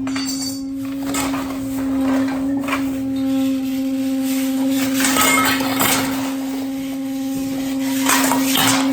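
Improvised metal percussion scraping and clattering in irregular bursts over a steady held tone, with the loudest flurries past the middle and near the end.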